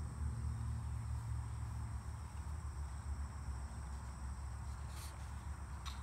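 Outdoor insects, such as crickets, trilling steadily at a high pitch over a low rumble, with a book page being turned near the end.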